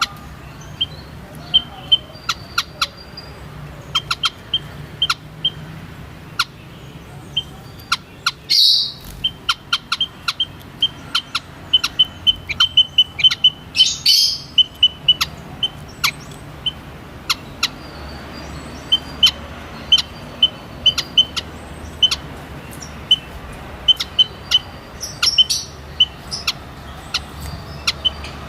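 White-headed munia (Lonchura maja) giving short, high chirping calls, many in quick irregular succession, with two louder, noisier bursts about nine and fourteen seconds in.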